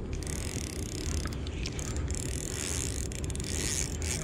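Spinning reel working under load during the fight with a hooked queenfish: a mechanical whirring with a few clicks, over a steady low rumble.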